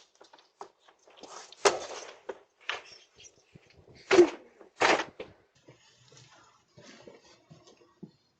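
A few sharp knocks and bangs, the loudest two about four and five seconds in, with faint rustling between, as picked up by a doorbell camera's microphone.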